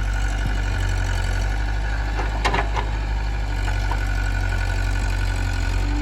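Heavy diesel engine running steadily at idle, a deep even hum, with one brief sharp sound about two and a half seconds in.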